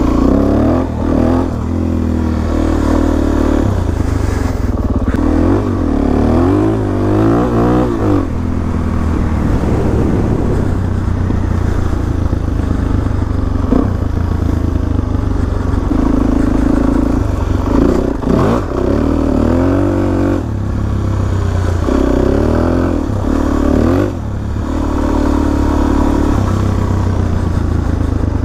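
Suzuki DR-Z400SM's single-cylinder four-stroke engine under way, revving up and down again and again, its pitch rising and falling with each blip and gear change, with steadier cruising stretches in between.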